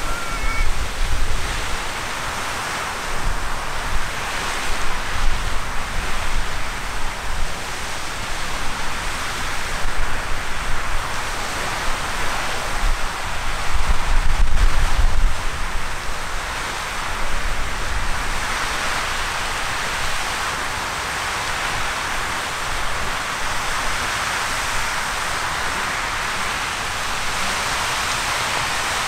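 Riverside Geyser erupting: a steady, loud rushing hiss of the water jet and steam pouring into the river. Uneven low rumbling gusts come and go through the first half or more, strongest about fifteen seconds in, then the sound settles to a steadier rush.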